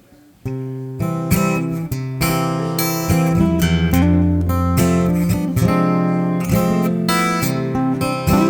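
Acoustic guitar strumming chords, starting about half a second in.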